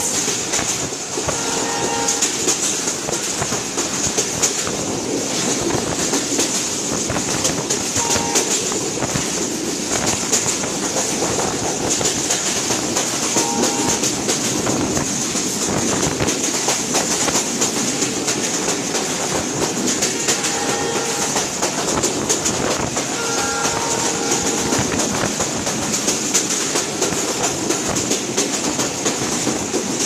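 Express passenger train running at speed, heard from inside a carriage: steady rumble and rush with wheels clattering over the rails. A few short tones sound at intervals.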